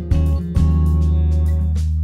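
Instrumental background music with a deep, sustained bass line whose notes change every half second or so.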